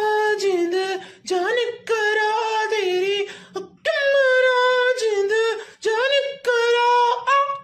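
A high-pitched voice singing unaccompanied in short phrases of held, wavering notes with brief pauses between them.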